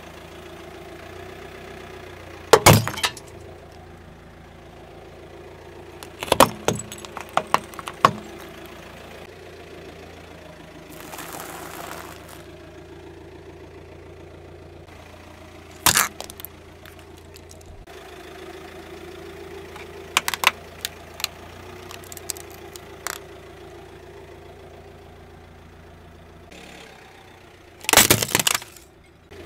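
A car's engine idling steadily while a tyre rolls over and crushes brittle objects on asphalt, a terracotta clay bowl, pretzel sticks and a small plastic item. The crushing comes as a series of loud sudden cracks and crunches.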